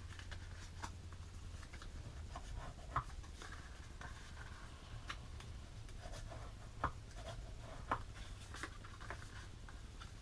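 Bone folder scoring and burnishing fold lines on card stock: soft scraping and rubbing strokes of the tool on paper, with a few light taps.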